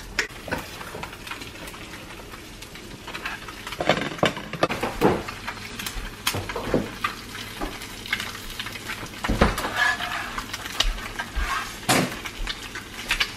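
Eggs frying on an electric griddle, a steady sizzle, with scattered sharp clicks and knocks of handling over it.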